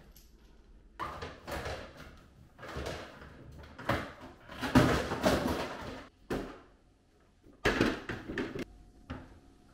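Irregular plastic clunks and knocks from a side-by-side refrigerator's freezer compartment as the ice bin and ice maker are handled to switch the ice maker back on. The knocks are loudest around the middle and again near the end.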